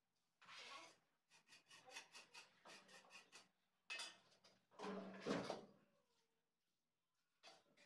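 Faint scrapes and knocks of a steel trowel working cement mortar, against the metal bucket and the wet floor, with a louder, longer noise about five seconds in.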